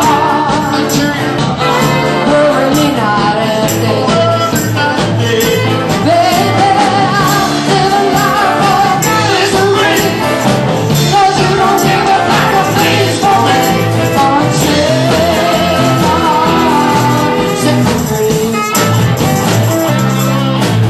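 Live band performing: singing at the microphones over electric guitars and a steady beat, with jingling percussion.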